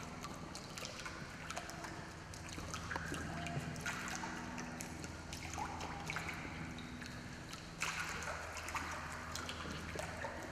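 Abu Hi-Lo jointed plug with its diving vane set back as a surface popper, pulled across the water surface and making small irregular popping, gurgling splashes. A steady low hum runs underneath.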